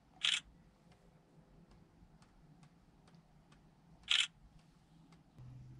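Two camera shutter clicks about four seconds apart, each short and crisp, with faint regular ticking between them.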